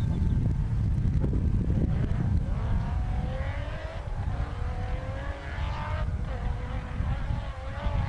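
Rally-raid pickup's engine running hard across a muddy field, its note rising and dipping with the throttle, over a heavy low rumble.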